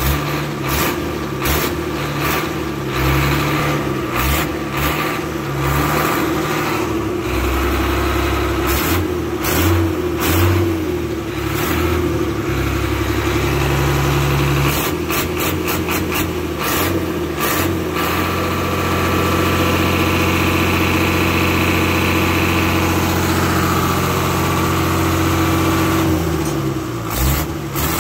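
Leyland Hino diesel engine running with the engine cover open. Its speed rises and falls for the first half, is held steady at a raised speed for several seconds, then drops back toward idle near the end.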